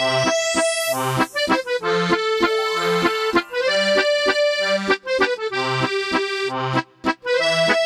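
Cheerful instrumental background music: a melody of held notes over a bass that bounces about twice a second, breaking off briefly about a second before the end.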